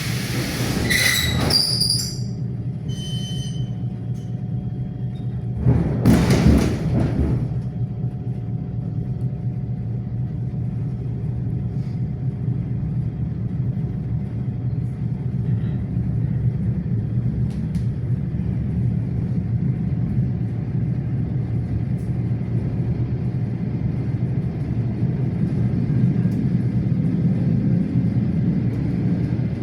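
Inside a suburban electric train carriage: a hiss and clatter near the start and a loud thump about six seconds in as the doors close, then the train running on steadily with a constant low rumble of wheels on the rails, a faint rising whine near the end as it picks up speed.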